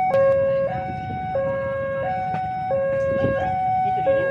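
Railway level-crossing warning alarm sounding: an electronic two-tone signal that alternates between a lower and a higher note about every two-thirds of a second, the signal that the barrier is down and a train is approaching.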